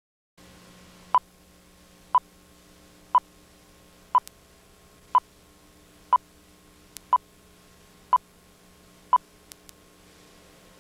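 Countdown leader beeps on a television commercial slate: nine short, identical high beeps exactly a second apart, over a faint low steady hum.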